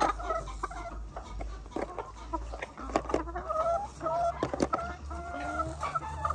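Laying hens clucking, many short calls overlapping one another, with scattered light knocks among them.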